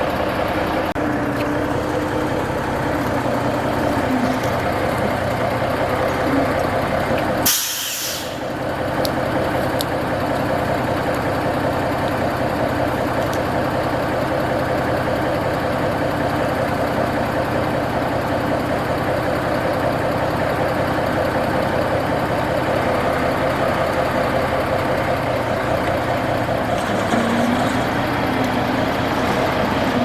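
1974 Kenworth self-loading log truck running steadily, with a short burst of air hiss about seven and a half seconds in.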